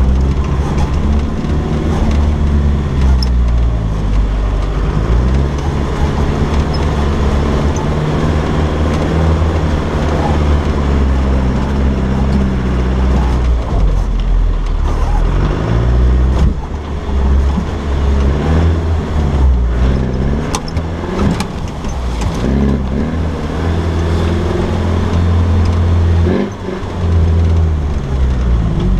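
Land Rover Defender 90's engine pulling along a muddy off-road track, its revs rising and falling over and over. A few sharp knocks come about twenty seconds in.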